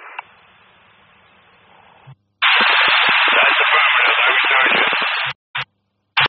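Radio scanner static: a faint hiss, then about three seconds of loud, harsh static from an open transmission with no clear voice, ending in two short bursts.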